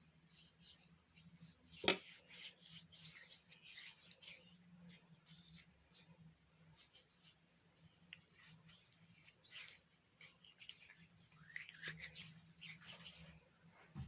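Hands rubbing a gritty baking-soda paste into the skin in circular massaging strokes: soft, repeated scratchy scrubbing, with one sharp click about two seconds in.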